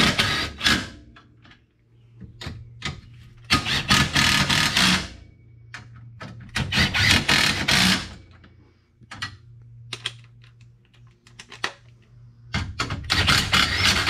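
A power driver running bolts down into a seat bracket in three bursts of about a second and a half each, with short clinks and knocks of tools and hardware between them.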